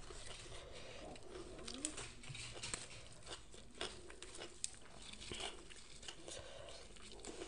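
Fresh herb leaves being plucked and torn from their stems by hand: soft rustling and crinkling with scattered small snaps.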